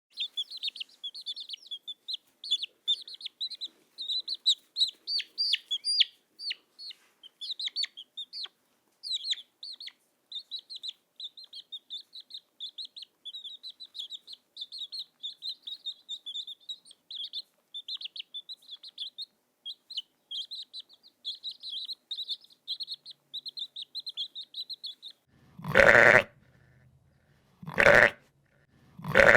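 Small birds chirping in a dense, rapid run of short high peeps. Near the end, three loud sheep bleats about a second and a half apart.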